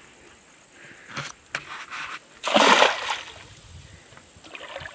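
Hand net swept into shallow river water to scoop up a freshwater prawn: one loud splash about two and a half seconds in, after a few small knocks and splashes.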